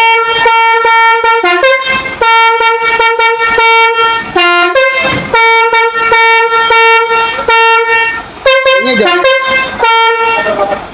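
Basuri musical air horn sounding its tune: a rhythmic run of short, steady horn notes, mostly on one pitch with a few lower notes. One of its trumpets is holed, so the tune comes out 'pincang' (limping), with a note missing.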